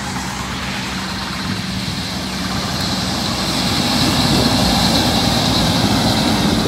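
Diesel engine of a tractor-trailer truck running steadily as it drives up and passes close by, growing louder from about two seconds in.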